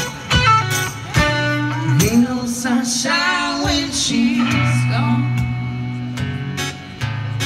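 A live band playing a song: a strummed acoustic guitar and an electric guitar with singing.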